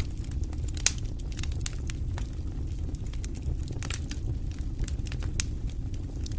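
Wood fire burning in a stone fireplace: a steady low rumble of flames with irregular sharp crackles and pops, one louder pop a little under a second in.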